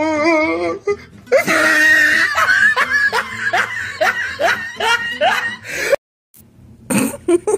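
A person laughing hard, a long run of quick ha-ha bursts about three a second, following the wavering tail of a drawn-out 'no'. The laughter breaks off abruptly, and voice returns near the end.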